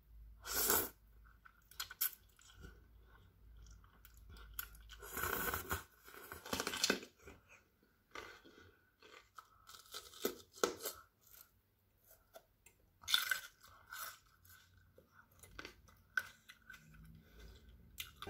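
Close-miked eating sounds: crunching bites into raw red bell pepper and chewing of stir-fried instant noodles, in short, separate bursts with quiet gaps.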